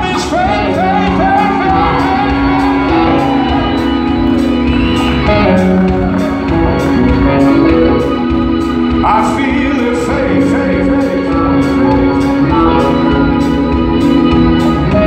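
Live rock band playing: drums keeping a steady cymbal beat under electric bass and guitar, with long held chords.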